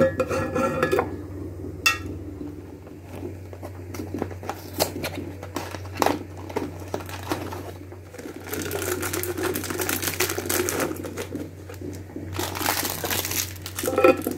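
Kitchen handling sounds: scattered clicks and knocks of items being picked up and set down, with two longer spells of rustling, one in the middle and one near the end, over a low steady hum.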